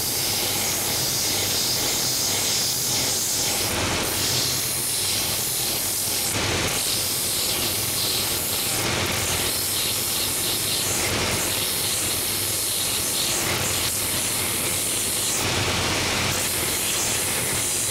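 Last-making belt sander running, its coarse 24-grit belt over a 4-inch wheel sanding a wooden shoe last. The high hiss of wood on the belt drops away briefly every two to three seconds as the last is lifted and pressed back on, over the machine's steady motor hum.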